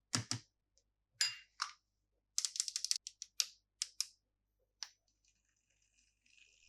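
Plastic candy packaging being handled and opened: a series of sharp clicks and crackles, with a quick run of clicks about two and a half seconds in, then a faint rustle starting near the end.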